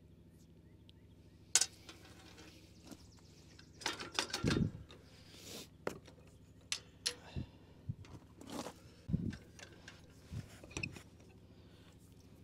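Scattered clinks, taps and clatter of tools and metal tractor parts being handled, with a sharp click about one and a half seconds in and busier clusters of knocks in the middle; a faint steady low hum underneath.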